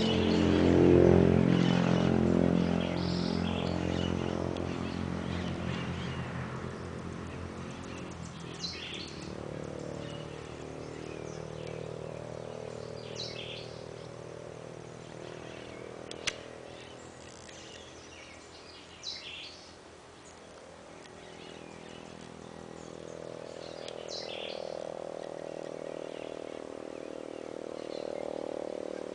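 Birds giving short chirping calls here and there, over a low drone that is loudest in the first few seconds, fades away, and swells again near the end. A single sharp click comes just past the middle.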